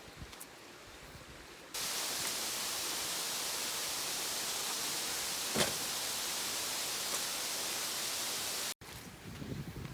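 Steady rushing of a river's flowing water, loud and even, cutting in suddenly about two seconds in and cutting off suddenly near the end, after a fainter steady stream murmur at the start.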